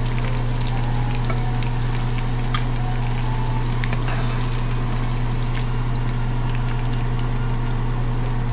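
Ladyfish fritters frying in very hot oil: a steady sizzle with scattered small crackles and pops, over a constant low hum.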